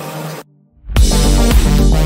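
Electronic music. It cuts out briefly about half a second in, then comes back about a second in with a heavier beat and deep bass.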